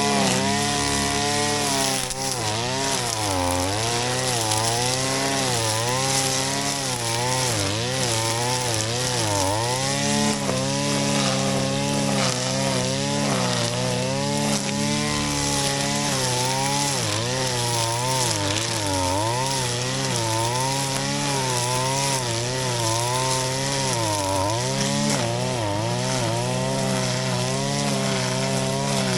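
Shindaiwa RK3026-PT 25.4 cc two-stroke brush cutter running near full throttle, its engine pitch dipping and recovering again and again as it cuts through grass.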